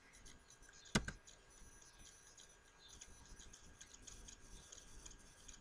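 A single sharp keystroke about a second in, the Enter key pressed on a computer keyboard, then a low hiss with faint scattered ticks.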